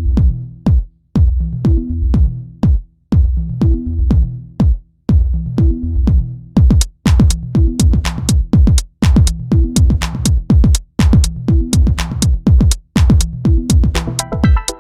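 Electronic background music with a steady drum-machine beat and a repeating bass line; brighter, sharper percussion joins about halfway through.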